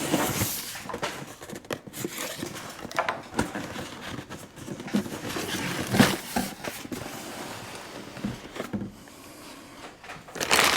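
A cardboard shipping box being opened and its packaging and parts handled: scattered knocks, scrapes and rustling, with a sharper knock about six seconds in.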